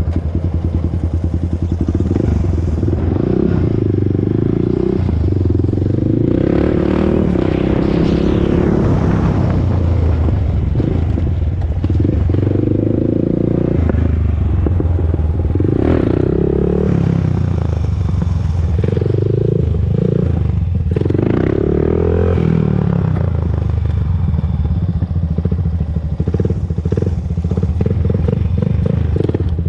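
Honda TRX400EX ATV's single-cylinder four-stroke engine running under way, revving up and down repeatedly with the throttle.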